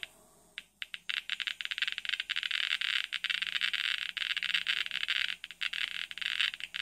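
Geiger counter clicking as its probe is held over the ash of a thorium gas mantle: a few scattered clicks, then from about a second in a rapid, dense run of clicks. The count rate signals radioactivity from the thorium, with the meter reading almost 4 microgray per hour.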